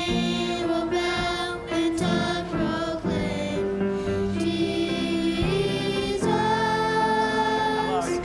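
Church choir singing a gospel song over accompaniment, with notes held for about a second at a time.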